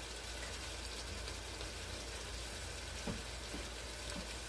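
Eggs sizzling softly in an omelet pan under a lid, a steady fine crackle, with one light knock about three seconds in.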